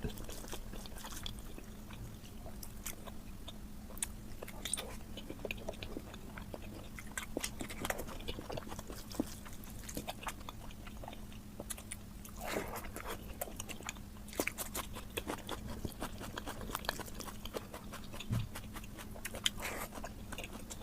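Close-miked chewing and lip-smacking of someone eating oily mutton fat curry and egg masala: a continuous run of irregular wet clicks and smacks, over a faint steady hum.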